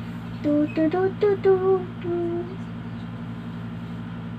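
A young girl's voice humming a series of short, high notes for about two and a half seconds, then falling quiet. A steady low hum runs underneath throughout.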